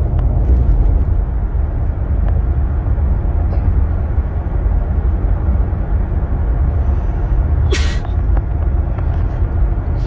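Road noise inside a moving car's cabin: a steady low rumble of tyres and engine at cruising speed, with one brief sharp click or hiss about eight seconds in.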